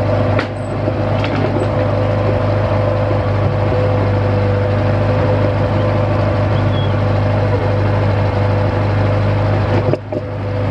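Limited access drill rig's engine running steadily at a constant pitch, with brief drops in level about half a second in and near the end.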